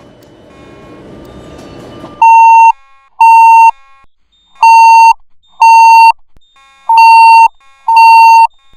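Fire alarm evacuation tone: very loud electronic beeps, each about half a second long, sounding in pairs with a new pair every two and a half seconds or so. The loud beeping starts about two seconds in, over fainter beeping and a rising hiss. It is the signal to evacuate, sounding between the recorded evacuation announcements.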